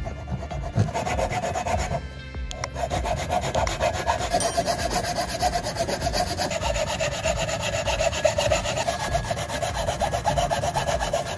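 Hacksaw cutting through a wooden block: rapid back-and-forth strokes of the fine-toothed blade rasping in the wood, with a brief pause about two seconds in.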